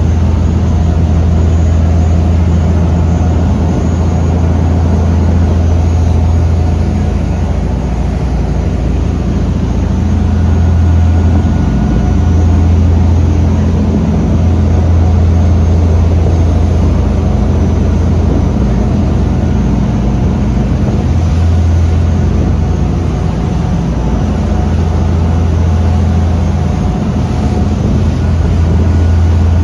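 A sportfishing boat's engines running steadily under way, a loud low drone, with the wash of water churning in the wake behind the stern.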